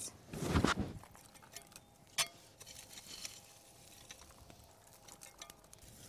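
A rustling scrape in the first second, then faint scraping and small clinks, with one sharper ringing clink about two seconds in, as hot embers and ash are heaped over bread dough baking on a heated stone under cabbage leaves.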